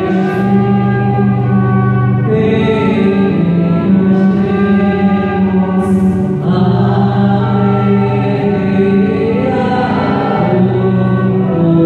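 A congregation singing a hymn together, accompanied by an electronic keyboard with held bass notes and a trumpet playing the melody.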